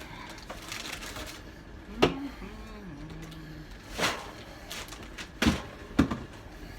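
A few sharp clicks and knocks from handling an aluminium can of Monster energy drink, spaced a second or two apart. A brief hum of a voice comes after the first knock.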